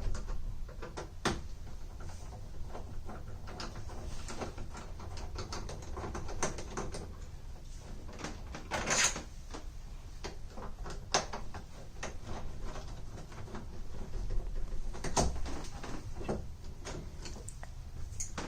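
Door lock hardware being worked on by hand: scattered clicks, knocks and small rattles, with a longer scraping rattle about halfway through and a few sharper knocks near the end.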